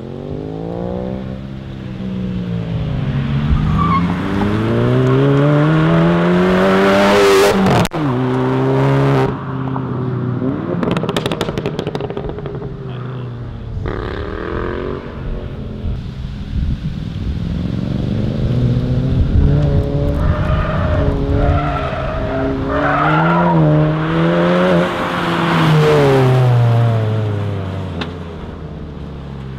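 VW MK7 GTI's turbocharged four-cylinder with a Corsa cat-back exhaust, accelerating hard. The engine note climbs in several rising runs, with a sharp pop just before eight seconds and crackling after it. Later it climbs again and falls away as the car slows.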